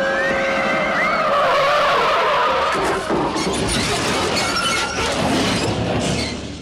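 Film sound effects of a truck skidding with a wavering squeal, then crashing through water and overturning, a loud splash mixed with crunching and shattering noises from about three seconds in.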